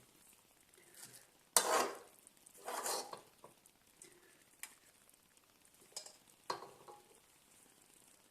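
A spoon scraping and knocking against dishes as biryani is served out, in a few short bursts; the loudest starts abruptly about one and a half seconds in, with another about a second later.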